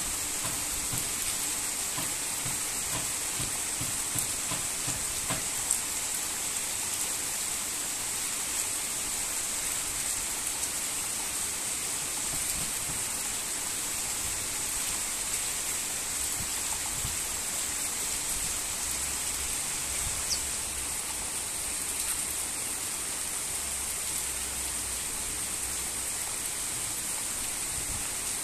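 Heavy rain falling steadily: an even hiss, with a few louder drop ticks here and there.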